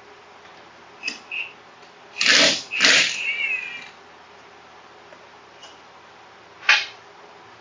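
Cordless impact gun rattling in two short bursts about two and three seconds in, spinning the old pulley nut off a 3G alternator. A few short clicks come before and after.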